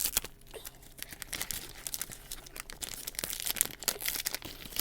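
Cookie wrapping crinkling and rustling as it is handled and opened, in many quick, irregular crackles.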